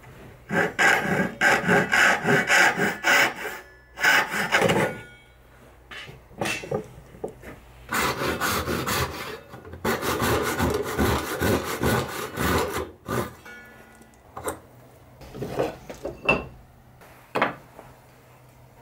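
Hand saw cutting through a thick wooden blank shaped as a horse's profile, slicing it into thin toy-horse blanks: runs of quick rasping back-and-forth strokes, a long steady run in the middle, then a few separate strokes near the end as the cut finishes.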